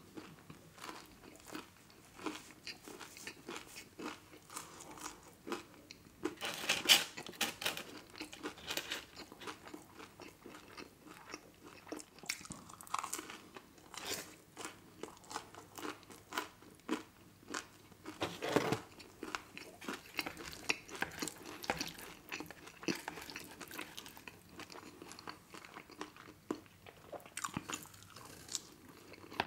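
Close-miked chewing of a person eating, wet mouth clicks and crunches, with a few louder sharp ones, the loudest about 7 seconds in. Near the end a forkful of chilli cheese fries goes into the mouth.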